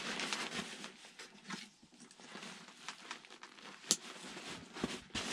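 Nylon fabric of an Osprey Exos 48 backpack rustling as its top lid is pulled over and its straps are handled, with small scattered clicks and one sharp click about four seconds in, a plastic strap buckle snapping shut.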